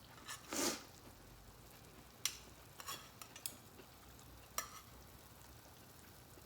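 Cooking utensil scraping and clinking in an aluminium hangō mess tin as the contents are stirred: one longer scrape under a second in, then a few sharp clinks.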